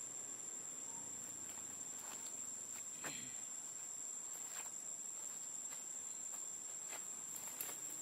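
Steady high-pitched drone of insects, crickets or cicadas, with a few faint clicks and rustles and a short falling sound about three seconds in.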